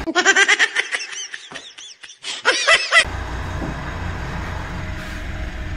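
For about three seconds, a rapid run of high calls that rise and fall in pitch, starting and stopping abruptly. Then the low, steady hum of the Mitsubishi Montero Sport's engine idling.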